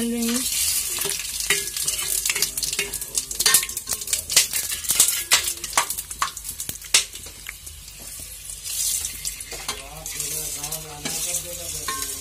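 Whole spices, bay leaves among them, sizzling as they go into hot oil in a metal pot, loudest at the start. A slotted spatula stirs them, clicking and scraping against the pot many times through the middle.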